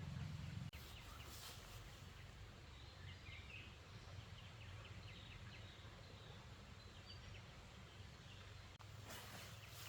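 Faint outdoor ambience with faint, short, scattered bird chirps in the middle; a low hum cuts off abruptly under a second in.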